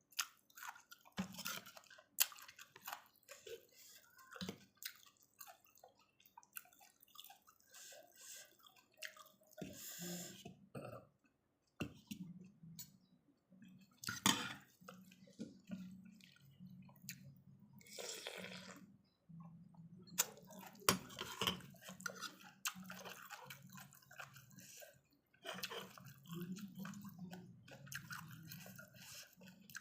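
Close-up eating of a bowl of pork noodle soup: chewing and slurping of noodles and broth, with scattered short clicks.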